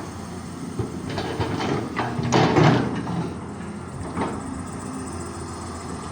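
Caterpillar 320D hydraulic excavator running steadily, with metallic clanking and scraping from the bucket and machine. The loudest clatter comes about two and a half seconds in, with another clank near four seconds.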